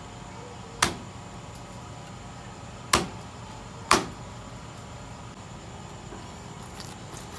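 A large knife chopping through roasted meat with crisp skin and striking the chopping block: three sharp chops, the last two about a second apart.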